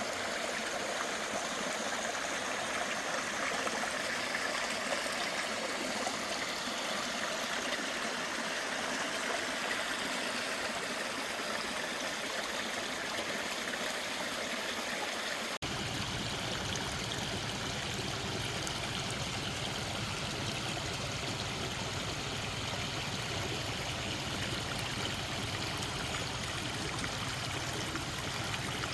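A mountain valley stream rushing over rocks, a steady flow of water. About halfway through, the sound changes abruptly to a fuller, deeper rush, as at another stretch of the stream.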